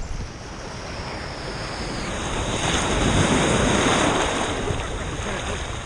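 Ocean surf: a wave swells and washes in, loudest about halfway through, then eases off. Wind buffets the microphone throughout.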